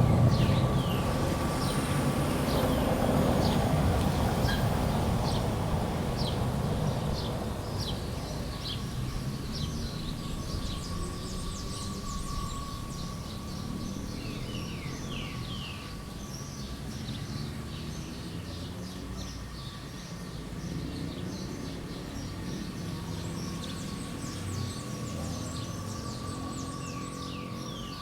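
Outdoor square ambience. A passing vehicle's low rumble fades away over the first several seconds, while many small birds chirp throughout with quick, repeated high notes. A faint steady tone hums underneath.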